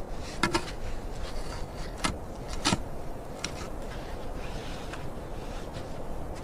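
A handful of short, sharp clicks spaced irregularly over a steady low rushing noise.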